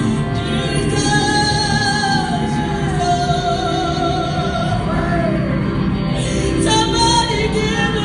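A woman singing a worship song into a microphone, holding long notes that slide between pitches, over electric guitar accompaniment played through an amplifier.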